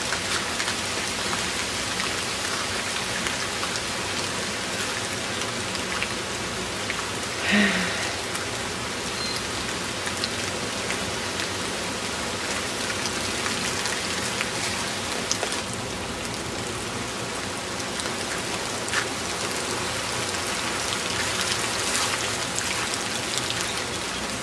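Steady rain falling, an even hiss of drops on leaves and wet ground, from the tail of a hurricane. About seven and a half seconds in there is one short, louder sound.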